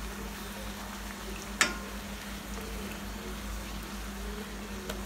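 Chola puri deep-frying in hot oil with a steady sizzle as a perforated steel skimmer presses it under. A single sharp click comes about one and a half seconds in.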